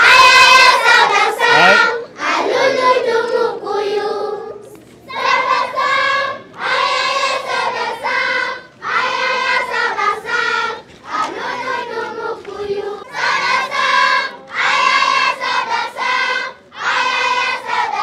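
A large group of schoolchildren singing together as a choir, in short phrases each a second or two long with brief breaks between them.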